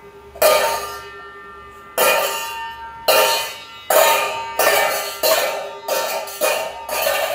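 Stainless steel pots and vessels struck together, ringing clangs. About nine strikes, each ringing on and dying away, coming quicker toward the end.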